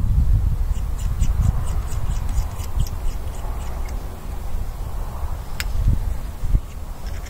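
Wind rumbling on the microphone, with a run of small quick clicks about a second in and one sharper click near the end, from hands working the breech of a Cometa Fusion PCP air rifle.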